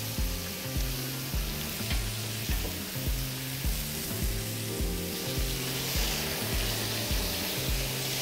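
Chicken breasts sizzling in olive oil on a hot ridged grill pan, a steady frying hiss, over background music with a steady beat.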